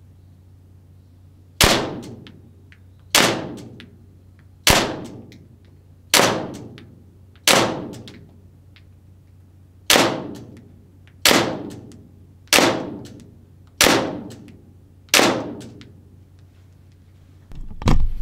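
ARMY TTI Combat Master green-gas blowback airsoft pistol fired ten times at a steady pace of about one shot every 1.3 s, with a longer pause near the middle. Each shot is a sharp crack as the BB smacks into the cardboard target board, ringing out briefly.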